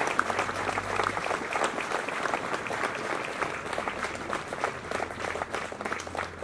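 An audience applauding, many hands clapping at once, easing off slightly toward the end.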